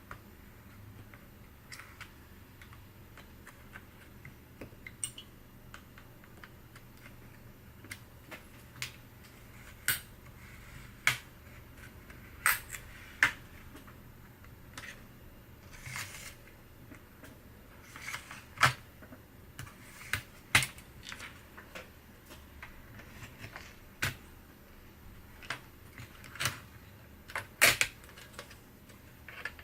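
Irregular clicks and taps of small tools, screws and plastic and metal parts being handled while an HP ENVY 15-j016TX laptop is taken apart, some sharp knocks standing out in the second half.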